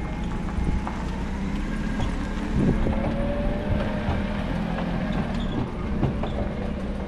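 Forklift engine running as the forklift drives over a dirt yard, a steady low hum with scattered clanks and rattles.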